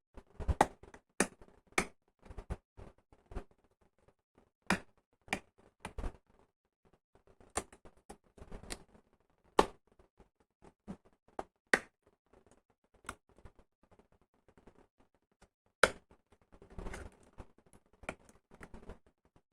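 Packaging of a laptop RAM module being opened by hand: irregular sharp clicks and snaps of plastic, with a couple of short crinkling stretches.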